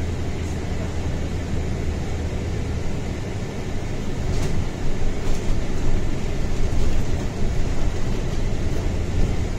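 Running noise from a seat inside a moving city transit vehicle: a steady low hum under a rumble, growing louder for a few seconds around the middle with a couple of light clicks.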